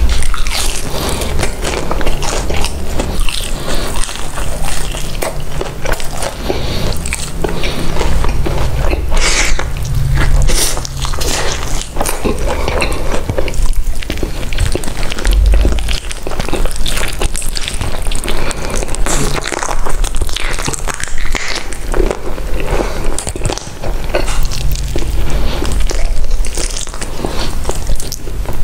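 Close-miked eating: repeated crunchy bites and chewing of crispy fast food.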